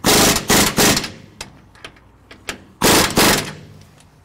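Logo intro sound effect: loud bursts of rapid mechanical rattling, three in the first second and a longer one about three seconds in, with scattered single clicks between.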